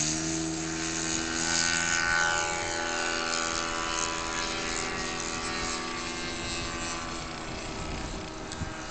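Radio-controlled model Cessna 177 Cardinal's motor and propeller running at a steady high pitch as the plane takes off and climbs away, growing slightly fainter near the end.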